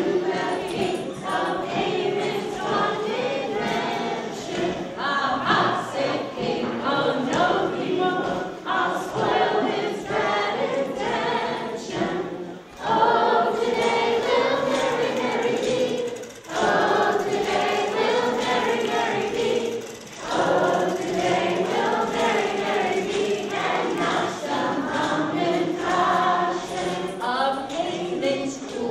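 Children's choir singing together, with a few brief pauses between lines.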